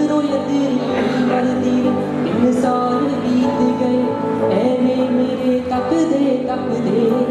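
A man singing live into a handheld microphone, amplified through a PA, over steady backing music.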